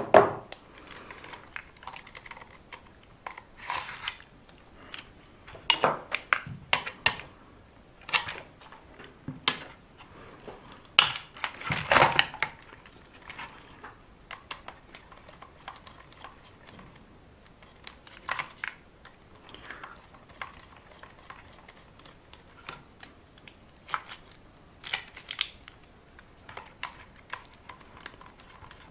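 Irregular small clicks and taps of hand tools and hard plastic RC-car parts being handled while screws are undone on the buggy's chassis, with the loudest run of clatter about twelve seconds in.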